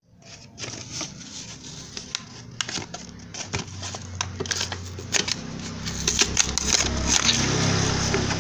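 Plastic and paper packaging crinkling, with many sharp clicks, as new clutch friction plates are handled and unwrapped. A low steady hum runs underneath and grows louder from about halfway through.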